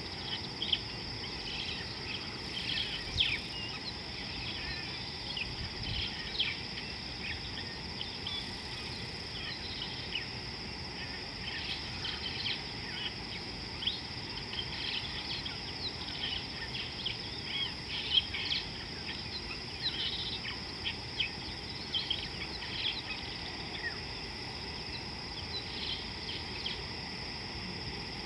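A steady, high insect drone, with many short bird chirps scattered over it.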